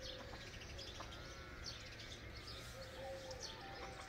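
Faint outdoor ambience with small birds chirping repeatedly in short high notes, over a faint steady wavering hum.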